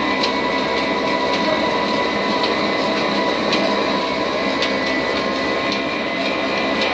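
Old stationary diesel engine running steadily, driving a belt-driven flour mill. A dense, even mechanical din carries a constant whine, with irregular sharp ticks every second or so.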